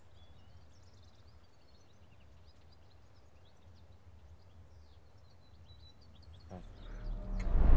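Quiet outdoor ambience: small birds chirping faintly and sparsely over a low steady rumble. Near the end a loud rushing noise swells up quickly.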